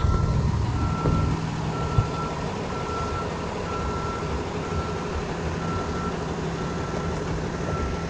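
Vehicle backup alarm beeping steadily, one single-pitched beep about every second, over a low steady rumble.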